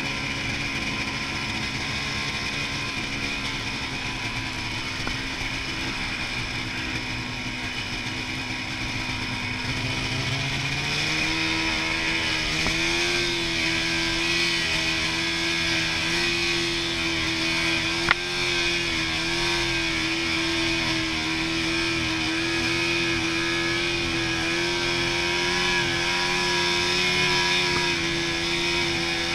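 Snowmobile engine running while riding over packed snow. Its pitch rises and it gets a little louder about a third of the way in as the sled speeds up, then it holds steady. There is a single sharp click about two-thirds of the way through.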